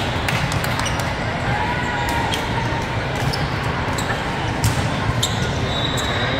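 Busy indoor volleyball tournament hall: a steady din of many voices, with scattered sharp thuds and slaps of volleyballs being hit and bouncing on the courts around.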